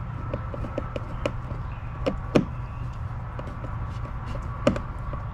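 A few sharp clicks and taps of plastic parts and screws being handled while a transducer mount and its cap are fitted back onto a kayak hull, the loudest about two and a half seconds in and again near the end, over a steady low hum.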